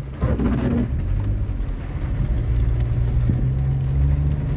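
Car engine and road noise heard from inside the cabin while driving, a steady low hum that comes up sharply at the start.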